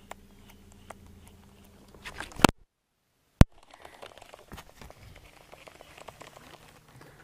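The camera's microphone is bumped and handled. A low steady hum stops about two and a half seconds in with a loud knock, the audio cuts out to dead silence for about a second, and a sharp click brings it back. After that come irregular rustling and scraping as a hand works at the mic.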